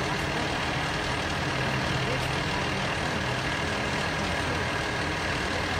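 Heavy vehicle engine idling steadily, likely the fire engine parked at the scene, with a low hum under outdoor background noise.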